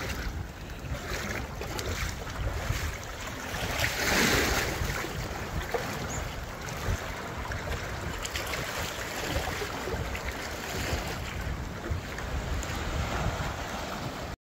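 Sea waves surging and washing through a narrow rock gully, with wind buffeting the microphone; one louder wash rushes in about four seconds in.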